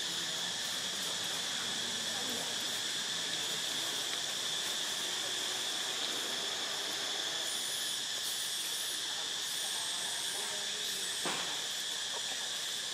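Steady high-pitched drone of insects in the background, unbroken throughout, with faint high bird chirps around the middle and a single sharp click near the end.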